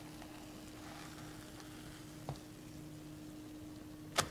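Faint sizzling of pancakes cooking in a nonstick frying pan over low heat, over a steady low hum. A small click about two seconds in and a sharper, louder click near the end.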